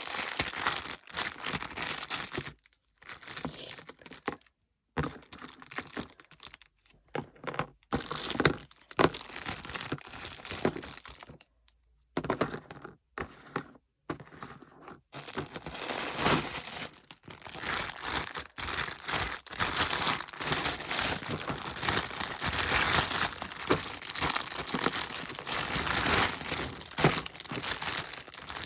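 Crinkly toy packaging being crumpled and torn open. It comes in choppy stretches broken by sudden silent gaps through the first half, then runs on continuously from about halfway.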